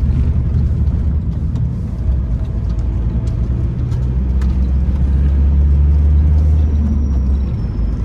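Campervan engine and road noise heard from inside the cab: a steady low drone that gets louder a little past halfway through.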